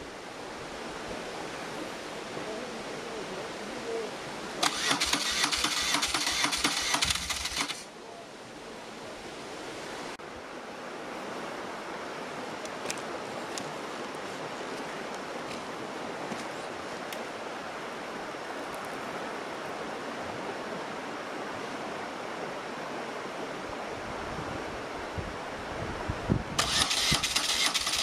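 BMW R1200GS boxer-twin engine cranked on its electric starter in two bursts, about three seconds and then about two seconds long, with an even pulsing beat and no sign of catching and running. The engine is a drowned one being restarted after it took in water fording a river.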